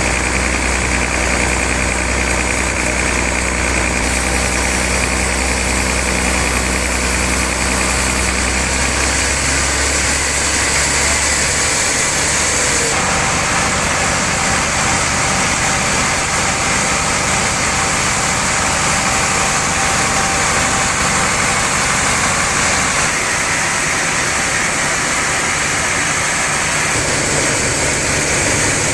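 Sawmill machinery running steadily with a constant low hum and hiss, the low hum shifting in pitch about ten seconds in.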